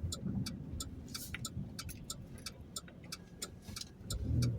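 A car's turn-signal indicator ticking evenly, over low road and engine rumble that swells near the end.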